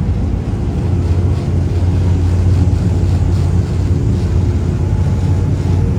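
Small passenger ferry boat's engine running at a steady cruise, a continuous low drone heard from on board.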